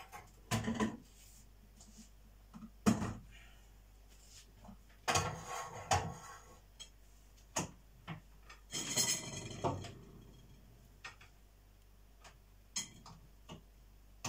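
Kitchen things being handled: scattered knocks and clatters, with two longer stretches of rattling and rustling about five and nine seconds in.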